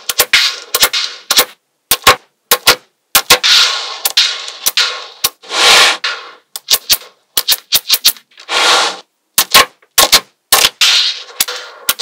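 Small magnetic balls clicking sharply as they snap onto a flat sheet of magnetic balls, with a few longer rattling clatters about four, six and nine seconds in as a cluster of balls slides and settles into place.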